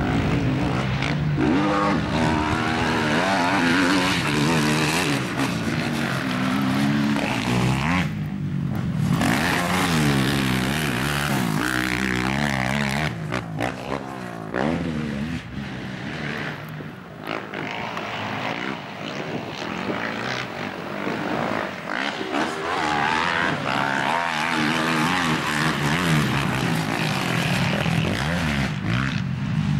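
Racing quad bikes' engines revving hard, the pitch climbing and falling over and over with throttle and gear changes, with a couple of brief lulls.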